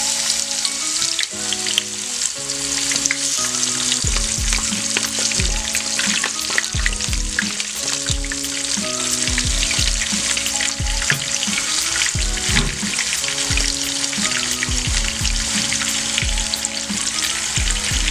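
Hot oil sizzling and crackling steadily as seasoned beef brisket pan-fries. Background music with a low beat plays underneath, the beat coming in about four seconds in.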